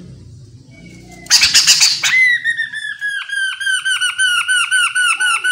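Chestnut-capped laughingthrush calling: a loud, harsh rattling chatter a little over a second in, then a fast run of short down-slurred whistled notes, about five a second.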